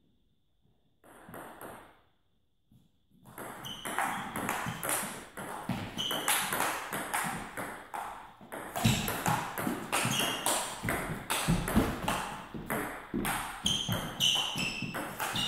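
Table tennis rally: the ball clicking off rackets and the table in a quick run of hits that starts about three seconds in, after a near-silent moment.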